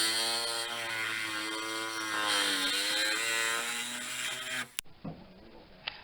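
Angle grinder with a 4-inch wheel cutting through a bus's sheet-metal roof: a steady motor whine under a hiss of cutting, dipping briefly in pitch as it bites under load. It stops abruptly near the end, followed by a few faint clicks.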